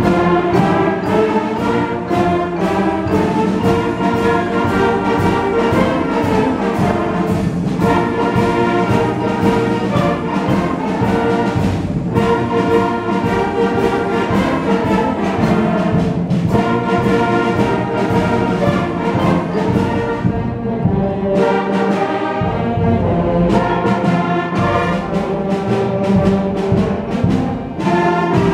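Eighth-grade concert band playing: clarinets and brass together over a steady percussion beat. About twenty seconds in the beat drops out for a few seconds of softer playing, then the full band comes back in.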